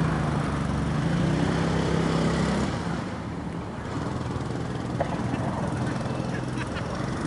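Steady low engine hum with an even pitch. It weakens about three seconds in and returns a second later, and a single sharp click comes about five seconds in.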